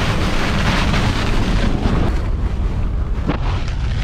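Heavy, wind-driven rain pounding steadily on a camper truck's body, heard from inside the vehicle.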